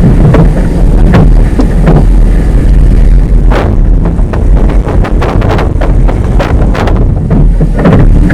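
Wind buffeting the microphone: a loud, steady low rumble broken by irregular sharp thumps and crackles.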